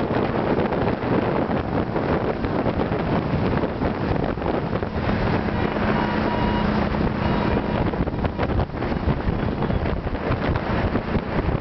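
Wind buffeting the microphone of a moving motorbike, a steady, loud rushing rumble over the bike's road and engine noise. A fainter steady tone rises through it for a few seconds in the middle.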